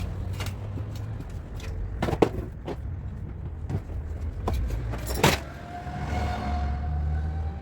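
Irregular sharp metallic knocks and clinks of bodywork tools on a car's panel, the loudest about two seconds in and again about five seconds in, over a steady low hum.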